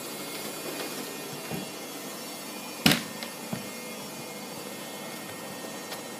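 Hoover Optima washing machine spinning: a steady motor hum with a whine of several steady tones. A single sharp knock about halfway through, with a few faint clicks around it.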